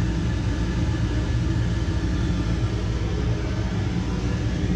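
Steady low rumble and hum of running boiler-room machinery, with faint steady tones above it and no distinct knocks.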